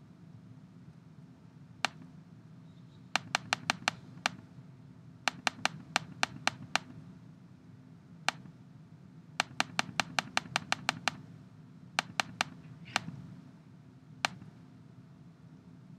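Sharp clicks from working a computer's mouse and keyboard, in quick runs of several a second with single clicks between, over a low steady hum.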